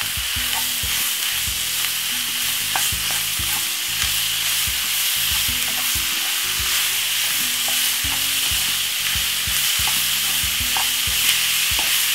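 Lamb mince sizzling steadily as it browns in a frying pan with onion and spring onion. A wooden spoon stirs it round, making scattered scrapes and taps against the pan.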